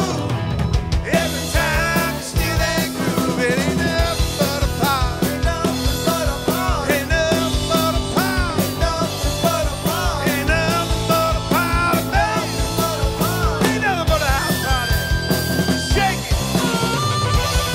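Rock band playing live in a small room: a steady drum-kit beat with electric guitars and bass. Over it a harmonica plays bending lead lines, holding one long note near the end.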